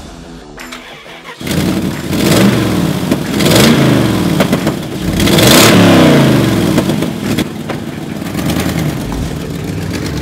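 Dodge Dakota V8 engine starting with a sudden catch about a second and a half in, then revved three times, each rise and fall in pitch, before settling to a steadier run as the truck pulls away.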